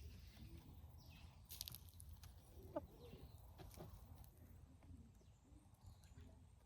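Faint, soft clucking of hens, with small birds chirping now and then over a low rumble; a short click about one and a half seconds in.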